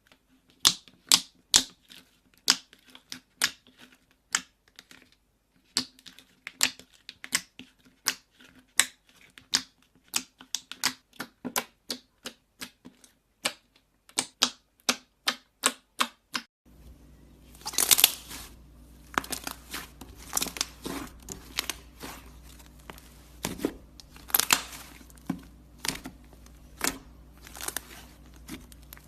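Slime being pressed and worked by hand, making sharp clicking pops about two or three times a second. About two-thirds of the way through the sound changes abruptly to a steady low hum under louder crackling pops.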